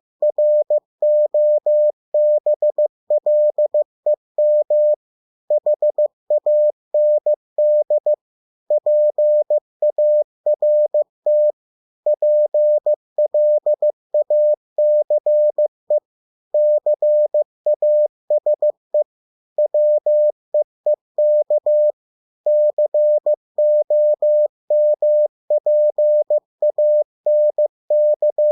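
Morse code (CW) practice tone: a single steady beep keyed on and off into dots and dashes at 15 words per minute, spelling English words with short pauses between them.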